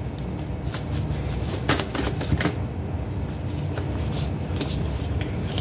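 A tarot card deck being shuffled by hand, the cards snapping and slapping together in quick, irregular clicks, over a steady low hum.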